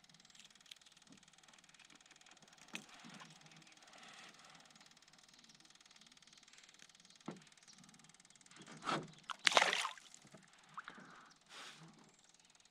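Water sloshing and splashing around a canoe, with a couple of light knocks and a louder burst of splashing about three-quarters of the way through.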